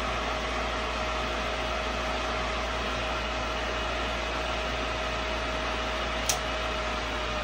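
Nidec Neptune variable-speed pool pump motor running steadily at its top speed of 3450 RPM, an even whir with a faint steady whine. A brief click sounds about six seconds in.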